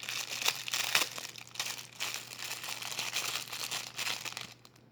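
Plastic packaging of a fidget toy being crinkled and torn open by hand, a dense crackling with sharp snaps that stops shortly before the end.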